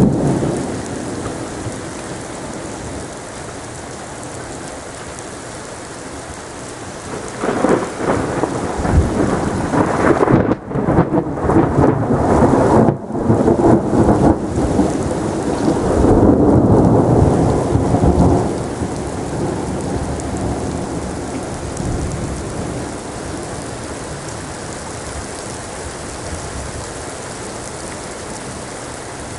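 Thunderstorm: heavy rain hissing steadily, with thunder. A rumble fades away at the start. About seven seconds in, a long crackling roll of thunder builds, is loudest from about ten to eighteen seconds, then rumbles off.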